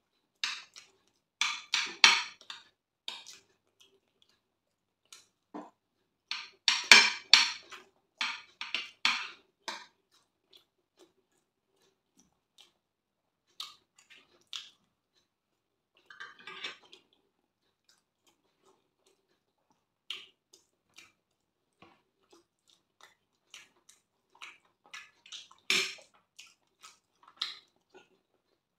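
Eating sounds: a metal spoon clinking and scraping in a glass dish, with wet chewing and lip smacking. They come in bursts of quick clicks with quiet pauses between, loudest a couple of seconds in and again around seven seconds in.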